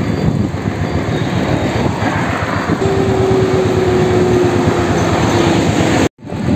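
Wind buffeting the microphone and road noise from a moving vehicle, loud and steady. About three seconds in, a single steady tone joins for some two and a half seconds, sagging slightly in pitch. The sound cuts out abruptly for a moment near the end.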